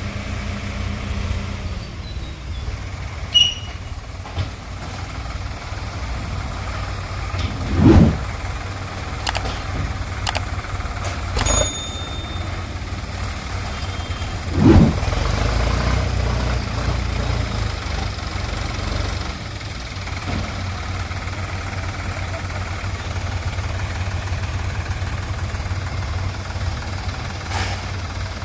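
Heavy diesel machinery engine running steadily, with two brief loud swells about eight and fifteen seconds in.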